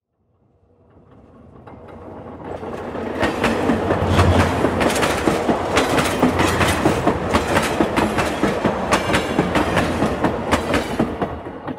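Talgo sleeper train running, heard from inside the cars: wheels clattering over the rails with a steady rumble and rapid clicking, about four clicks a second. It swells up over the first few seconds and fades near the end.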